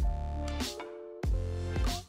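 Electronic outro music with deep bass and a thumping beat under held synth tones.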